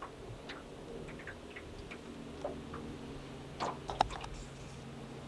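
Fishing reel being cranked as a lure is retrieved: scattered light clicks and ticks at an uneven pace, with a louder cluster of clicks about three and a half to four seconds in, over a faint low steady hum.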